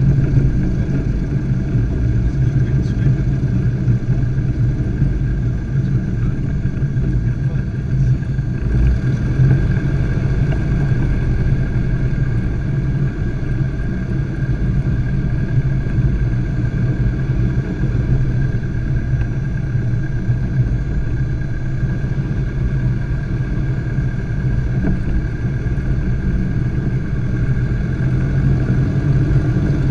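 Single piston engine and propeller of a Robin DH200 light aircraft running steadily, with a low, even drone.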